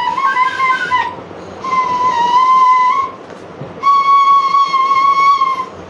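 Bamboo flute (baanshi) blown in long held notes: one ends about a second in, then two more follow with short gaps, the last a little higher in pitch.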